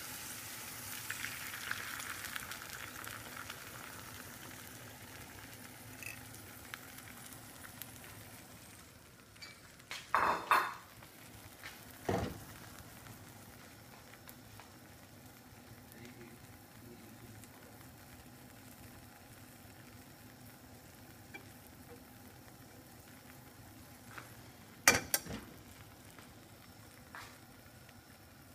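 Beaten eggs sizzling in a hot oiled frying pan as they are poured over sautéed vegetables, the sizzle fading as the omelet sets. A slotted metal spatula knocks against the pan a few times, about ten seconds in and again near the end.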